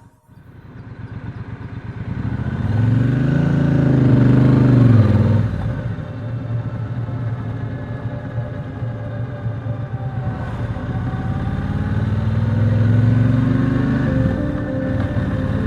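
Triumph Speedmaster's 1200 cc parallel-twin engine pulling through the gears: the pitch rises, falls away at a gear change about five seconds in, then climbs again and drops at another change near the end.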